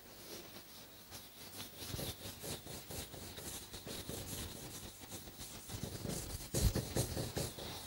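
A duster wiping chalk off a chalkboard in quick repeated back-and-forth strokes, a steady run of rubbing swishes, with the strongest strokes near the end.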